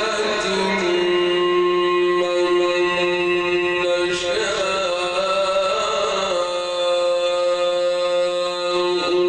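A man reciting the Quran in the melodic, drawn-out mujawwad style, holding long notes with ornamented turns. The pitch shifts about four seconds in before a second long held note.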